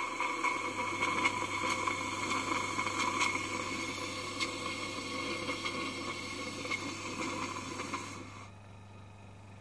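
Steady hiss from a valve on a Minnie model traction engine, with scattered light clicks, cutting off about eight and a half seconds in.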